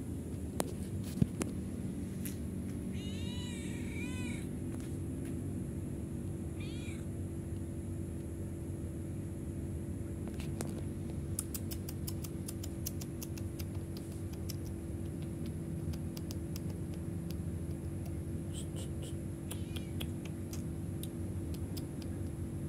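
Domestic cat meowing: two short meows about three to four seconds in and a briefer one near seven seconds. A few sharp clicks come near the start, over a steady low hum.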